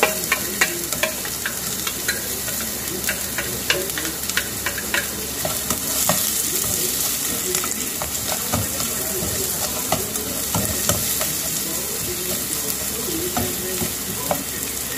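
Chopped onion and browned garlic sizzling in hot oil in a nonstick pan, stirred with a slotted spatula that scrapes and clicks against the pan again and again.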